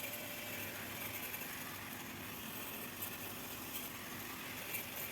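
Faint, steady noise with no distinct events.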